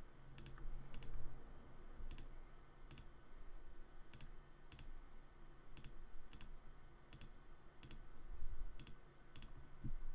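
Computer mouse clicking: single sharp clicks, one or two a second, with a couple of faint low bumps near the end.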